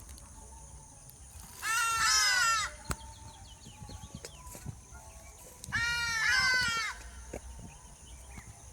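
Hadeda ibis calling: two loud, harsh calls about four seconds apart, each about a second long and made of a few quick falling notes. Faint small-bird chirps sound between them.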